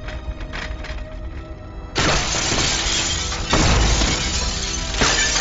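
Glass panels shattering in a sudden crash about two seconds in, followed by two more surges of breaking glass, over dramatic background music.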